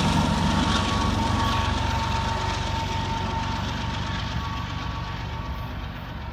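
Diesel locomotive at the rear of a double-stack intermodal train moving away over the rails. Its engine and the wheels on the track fade steadily, with a thin steady whine running under the rumble.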